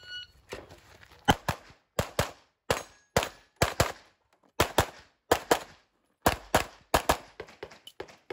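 A shot timer's start beep, then a CZ Shadow 2 pistol firing about a dozen quick pairs of shots as the shooter engages targets across a USPSA stage.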